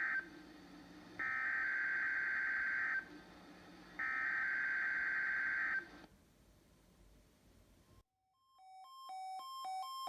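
NOAA Weather Radio SAME digital header for the Required Weekly Test: buzzy, warbling data bursts sent three times about a second apart, the first ending just after the start. About two and a half seconds after the last burst, a run of short electronic beeps stepping between two pitches begins.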